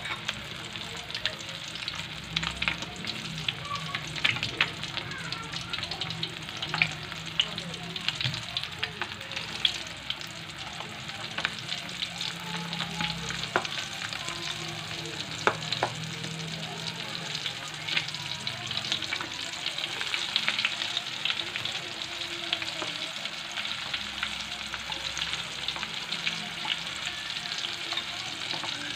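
Flour-coated chicken pieces deep-frying in very hot oil in a steel wok: a steady sizzle with frequent sharp pops and crackles.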